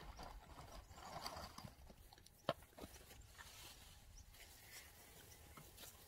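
Faint rustling of mulch being scooped by hand from a wheelbarrow, with soft footsteps and one sharp click about two and a half seconds in.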